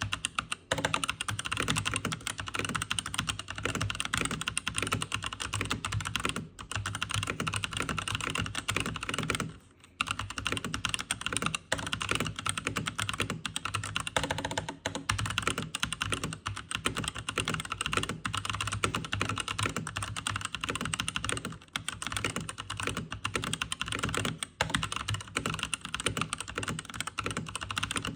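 Fast continuous typing on a Keychron C1 Pro mechanical keyboard with Gazzew U4T 65 g tactile switches: rapid key presses and returns, broken by a few brief pauses.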